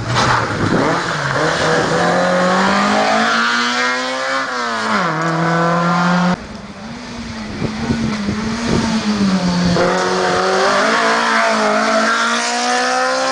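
Rally car engines at full throttle on a closed stage, revving hard and climbing through the gears with a drop in pitch at each gear change. There are two separate passes, joined by an abrupt cut about halfway. The later one is a yellow Opel Kadett GT/E coupé rally car going by close.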